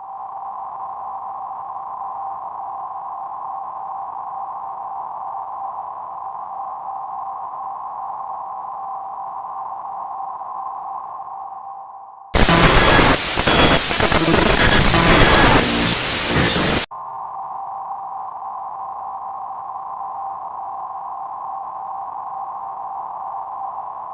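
A steady, slightly noisy two-note electronic tone like the Emergency Alert System attention signal drones on. About twelve seconds in it is cut by a loud burst of harsh static lasting about four and a half seconds, and then the tone returns.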